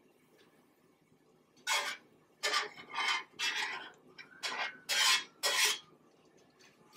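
Knife blade pushing a pat of butter across a hot griddle, making about seven short scraping strokes that start a couple of seconds in.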